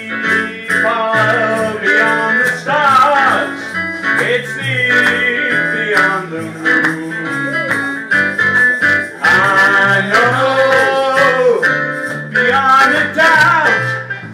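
A man singing into a microphone over live electronic keyboard accompaniment, with sustained keyboard notes underneath and the voice coming in and out in phrases.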